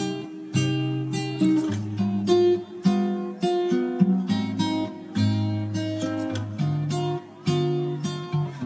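Acoustic guitar music: chords strummed about twice a second over a shifting bass line.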